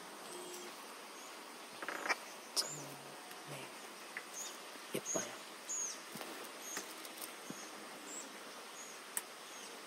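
Faint, short high-pitched chirps repeating irregularly over a low outdoor background hiss, with a few soft clicks.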